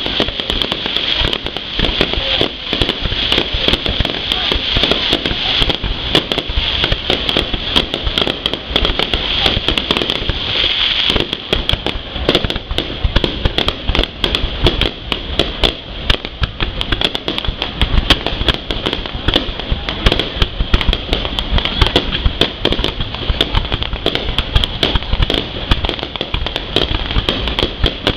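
Fireworks display: a continuous dense crackle of many sharp pops and bangs from bursting fireworks, with voices in the background.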